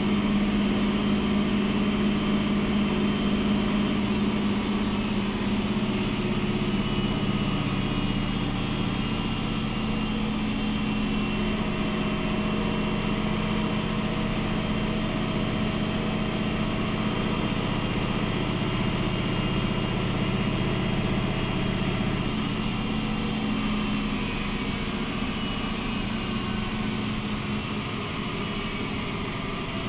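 MAN NL263 city bus heard from inside the cabin while driving, its rear-mounted MAN D2866 inline-six diesel running with a steady low drone. A fainter higher whine comes in about a quarter of the way through and fades about two-thirds in, and the drone eases slightly toward the end.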